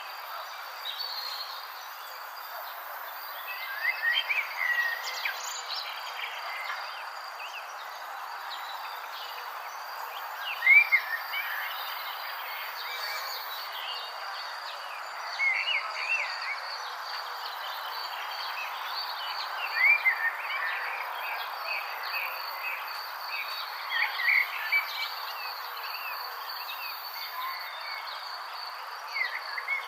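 Natural morning ambience: insects trilling steadily at a high pitch over an even background hiss, with a bird calling in short arching phrases every four to five seconds, loudest about ten seconds in.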